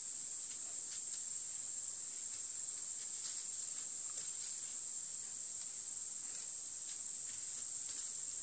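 Insect chorus of evening crickets: one steady, unbroken high-pitched trill, with a few faint scattered ticks.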